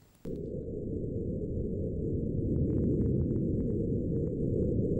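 Hydrophone recording of an unexplained low-frequency underwater sound from the Indian Ocean: a low rumble that starts suddenly just after the start and holds steady, with a few faint ticks in the middle. The researcher thinks it more likely a small underwater seismic event, like an earth tremor, than anything to do with the missing aircraft.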